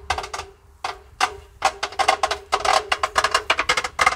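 A rapid, irregular string of weak pops and cracks from three small 'žabák' children's firecrackers going off inside a washing-machine drum.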